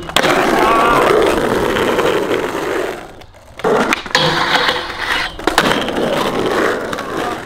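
Skateboard wheels rolling on smooth ground with sharp clacks of the board, in two runs broken by a short lull near the middle.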